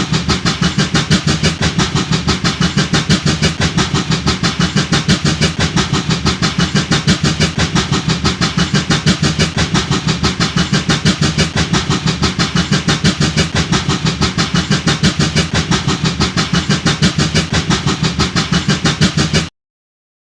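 Steam locomotive chuffing quickly and evenly, about five or six exhaust beats a second, then cutting off suddenly near the end.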